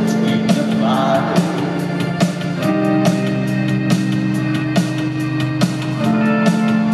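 Live rock band playing in an arena: held chords over a slow, steady drum beat, with a sung phrase about a second in.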